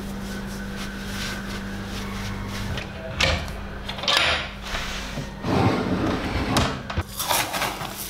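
Kitchen handling sounds over a steady low hum: a glass-panelled wooden cabinet door is opened, followed by several bursts of rustling and clatter as plastic containers are handled to get at dry rice.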